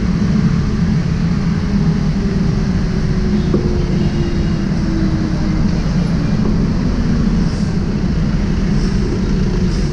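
Motorcycle engine running at low speed amid steady city street traffic; one vehicle's engine tone slides slowly down in pitch over a few seconds as it passes.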